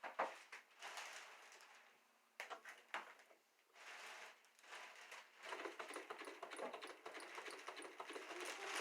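Consew 226R-1 industrial sewing machine being handled, with a few separate clicks and knocks. About five and a half seconds in, it starts a fast, even clicking as it sews a line of stitches.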